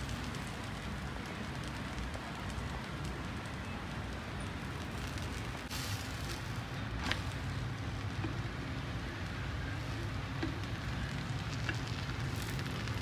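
Moong dal chilla sizzling in oil on a hot tawa, a steady frying hiss, with a couple of short sharp clicks about six and seven seconds in.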